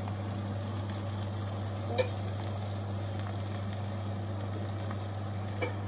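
Chicken and tomatoes sizzling in a steel pan, a steady frying hiss over a constant low hum. A sharp tap about two seconds in, and a smaller one near the end.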